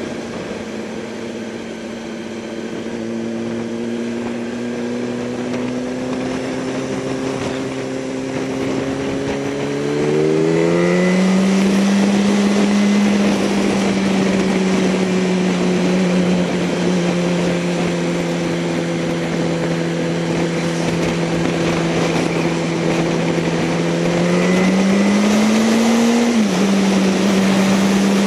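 Motorcycle engine running at road speed over steady wind and road noise. The engine note holds low, rises about ten seconds in as the bike accelerates, then climbs again near the end and drops suddenly with an upshift.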